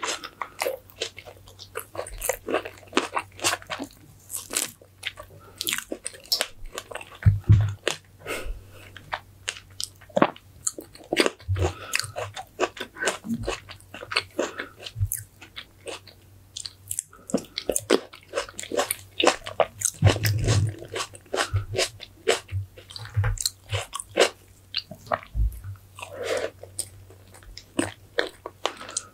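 Close-miked eating: a person biting and chewing mouthfuls of food, with many irregular sharp crunching clicks throughout.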